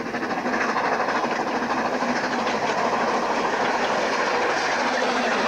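Narrow-gauge steam locomotive and its train of coaches running past close by, with steam hissing from low beside the cylinders. The noise swells as the train draws level about half a second in, then holds steady and loud.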